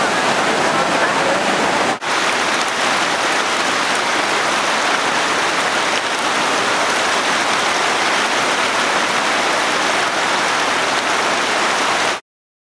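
Fast-flowing flash-flood water rushing across a street and parking lot, a steady loud wash of water noise. It drops out for an instant about two seconds in and cuts off abruptly near the end.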